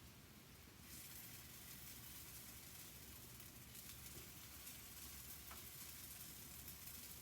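Pancake batter sizzling faintly in hot oil in a frying pan, the hiss growing louder about a second in as more batter goes into the pan.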